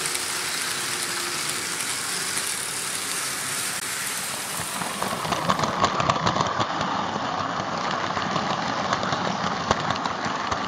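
Märklin H0 model trains running on stamped-steel M-track, a steady whirring rolling noise. About six seconds in it turns closer and rougher, with rapid clicks, as heard from on board a moving wagon.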